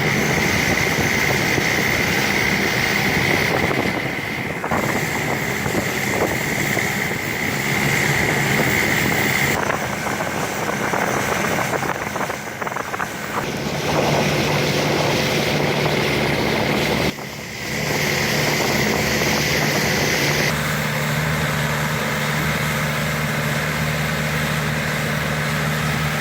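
Boat engine running steadily, its drone changing abruptly in tone a few times.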